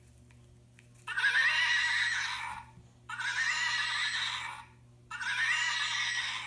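Horse whinny, heard three times about two seconds apart, each lasting about a second and a half with a quavering pitch.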